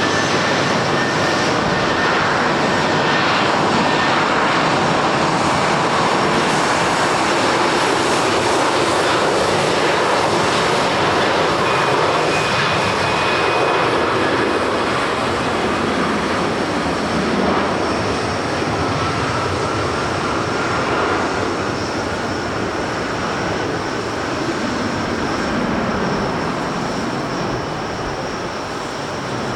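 Airliner jet engines running loud and steady as the aircraft moves on the runway, with faint thin whines over the roar; the noise eases slightly near the end.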